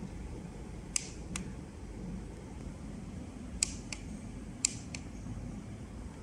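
Plastic push buttons on a handheld vein finder clicking three times, each a sharp click followed by a softer one about a third of a second later, as a button is pressed and let go, over a steady low background hum.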